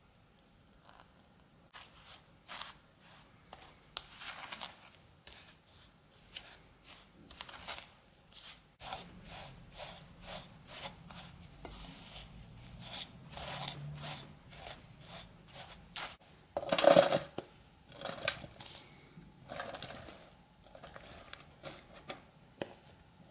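A wooden spoon stirring and scraping buttered chocolate-cookie crumbs in a bowl, in many short, irregular strokes, then spreading the crumbs in a metal cake ring. One louder knock comes about two-thirds of the way through.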